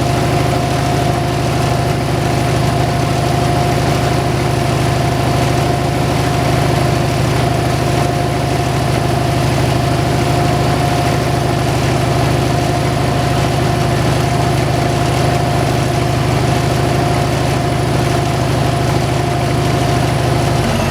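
Motor of a homemade slab-wood kindling cutter running steadily, a constant low hum with a steady whine over it and no cuts heard.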